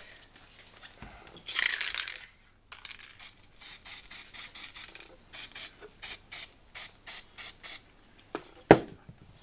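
Aerosol spray can hissing: one spray of under a second, then a quick run of short puffs, roughly three a second. A single knock near the end.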